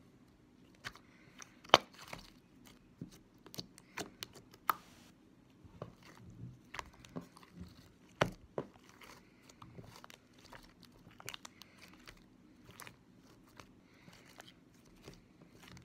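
Glitter slime being squished, poked and stretched by hand, giving off irregular sharp clicks and pops, with two louder snaps about two seconds and about eight seconds in.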